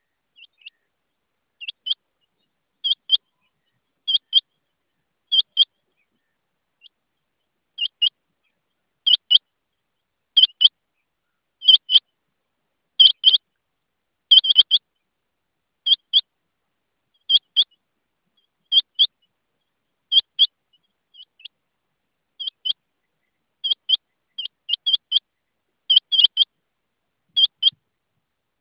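Rain quail calling: pairs of short, high notes repeated about every second and a quarter, with a couple of brief pauses.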